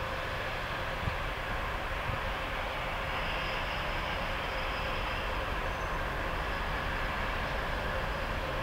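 2TE25KM twin-section diesel locomotive working under power as it pulls a freight train away from the station, a steady engine rumble that grows a little louder as it comes closer.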